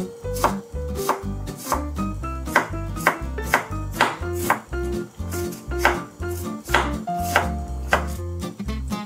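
Kitchen knife chopping on a wooden cutting board in a steady rhythm of about two cuts a second, over light background music.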